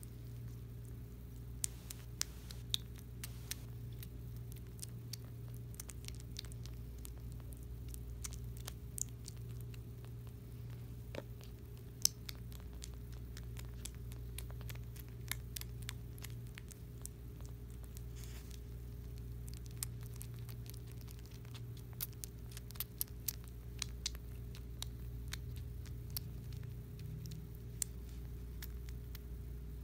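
Two-week-old kitten eating wet cat food for the first time: irregular small wet clicks and smacks of its mouth working in the food, over a steady low hum.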